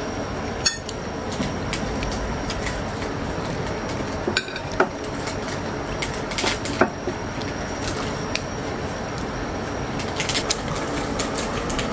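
A metal spoon clinking and scraping against a ceramic plate a few separate times while someone eats, over a steady background hiss.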